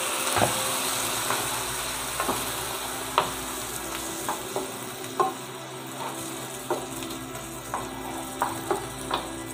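Wooden spatula stirring scrambled egg and onion in a nonstick frying pan. A steady sizzle comes from the splash of water and sauce just added, and the spatula knocks and scrapes against the pan irregularly, about once a second.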